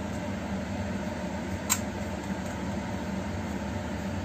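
Steady fan-like mechanical hum, with a single short click about a second and a half in.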